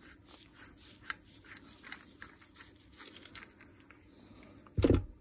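Hands handling small metal rotary-hammer barrel parts and tools, giving faint scattered clicks and rubbing. A single, much louder short knock comes near the end.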